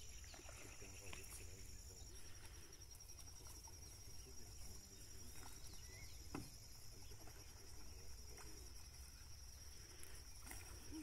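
Quiet ambience of insects trilling steadily at a high pitch, with a few faint chirps.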